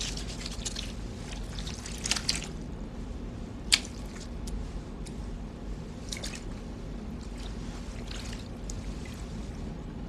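Wet squelching and dripping sounds of raw fish being handled and gutted, with a sharp click a little under four seconds in, over a low steady hum.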